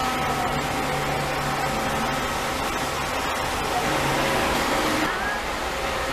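Steady whooshing hum of a parked coach bus's air conditioning and idling engine; the high hiss drops away about five seconds in.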